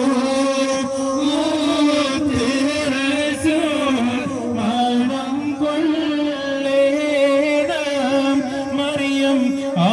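Devotional chanting and singing with music, carried over a portable loudspeaker, the voice holding long notes at a steady pitch.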